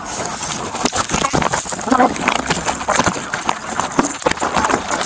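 Close-quarters scuffle picked up by a body-worn camera: a rapid, irregular run of knocks, thuds and scraping as the camera is jostled and rubbed against clothing, with scrambling footsteps.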